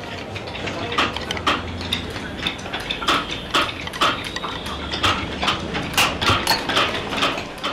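Small hand hammer tapping a chisel to carve a pattern into a white craft panel: a rapid, uneven run of sharp taps, a few each second.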